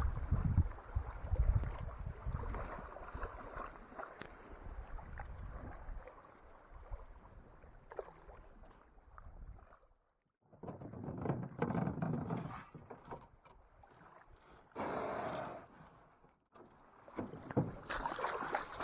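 Paddle strokes and water splashing around an aluminum canoe being paddled, the sound dropping out briefly twice.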